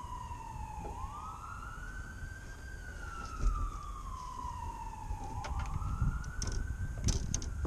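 An emergency-vehicle siren wailing, its tone rising quickly and falling slowly about every four to five seconds. A few sharp clicks and knocks from fishing rods in mesh rod sleeves being handled come in the middle and near the end.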